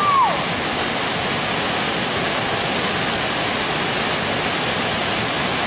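Waterfall pouring into a pool: a steady, even rush of water.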